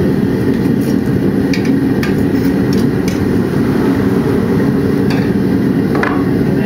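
Handmade venturi propane burner firing a forge: a steady, loud roar of burning gas, even and unbroken, its weight low in pitch, with a few faint ticks over it.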